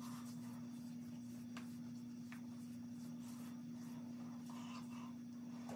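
Faint soft rubbing of fingertips spreading moisturizer cream over facial skin, over a steady low hum.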